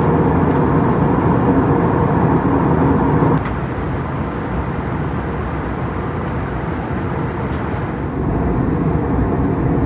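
Airliner cabin noise inside an Airbus A321neo in climb: a steady rush of airflow and engine rumble. It drops slightly about three seconds in and shifts again near eight seconds.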